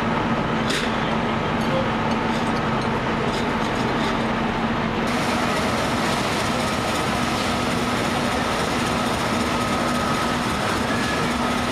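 1902 American LaFrance steam fire engine running and pumping: a loud, steady noise of steam and machinery with a low, constant hum.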